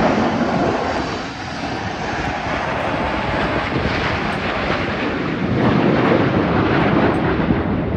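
Jet roar from a formation of Blue Angels F/A-18 Super Hornets flying past low. The noise dips briefly about a second in and swells again in the second half.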